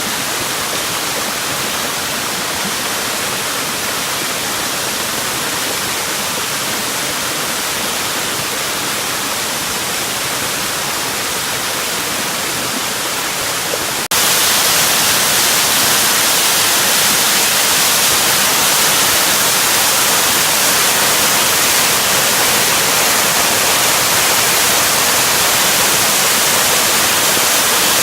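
Steady rushing of a waterfall. About halfway through it cuts suddenly to a louder, hissier rush.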